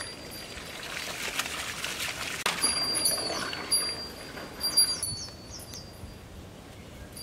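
Water from a garden hose running and splashing, louder from about two and a half seconds in as it fills a pot, and dying away about five seconds in. Birds call over it with short, high repeated whistles and quick falling chirps.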